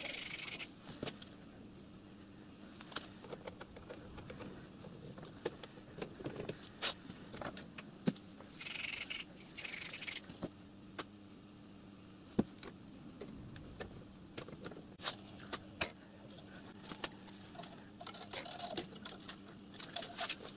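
Small metallic clicks, taps and rattles of copper plumbing pipe, elbow fittings and binding wire being handled and fitted together on a workbench, with a short hissy rustle at the start and another about halfway through, over a faint steady hum.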